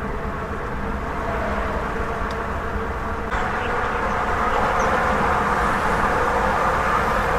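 Minivan engine and road noise heard from inside the cab while driving on the highway, a steady drone that grows louder about three seconds in.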